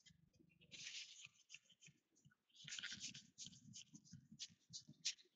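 Faint rustling and light clicks of trading cards being handled and flipped through by hand, with two longer slides about one and three seconds in, then quick small ticks.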